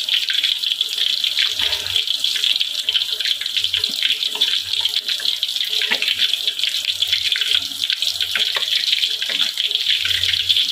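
Whole ikan duai fish shallow-frying in hot oil in a steel wok: a steady sizzle with a constant light crackle of spattering oil.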